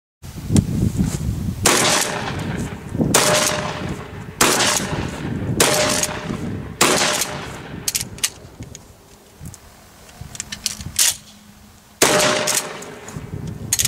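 Pump-action shotgun fired in a quick string of about six shots, one every second and a bit, then a pause of several seconds with small clicks before one more shot near the end.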